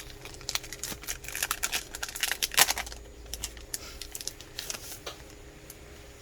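Rustling and crinkling of a pad of 6x6 craft papers and its packaging being handled, busiest and loudest in the first three seconds, then thinning out to occasional crackles.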